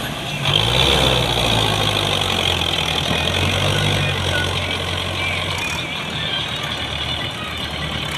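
Belarus tractor's diesel engine running steadily while pulling a trailer loaded with earth, working under load with black exhaust smoke. The engine note dips briefly at the start, picks up about half a second in, and its deep part thins out about six seconds in.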